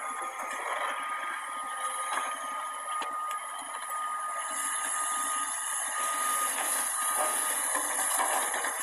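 Heavy earthmoving machinery working, a Cat excavator or loader running with a steady high whine that stops about seven seconds in, over a rattling mechanical noise.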